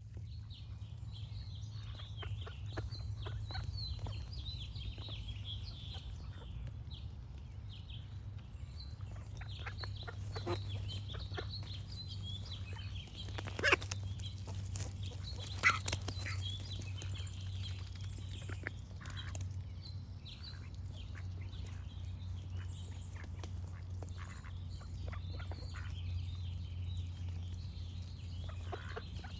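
Ducks quacking in short calls, two of them loud near the middle, over small songbirds chirping steadily high up. A steady low hum runs underneath.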